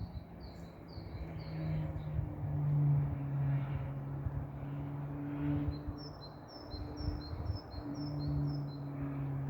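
A small songbird chirping in short, repeated high notes: about five in the first two seconds, then a quicker run of alternating two-pitched chirps in the last few seconds. Under it runs a steady low hum.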